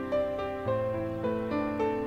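Background music: a slow melody of held notes, each changing about every half second.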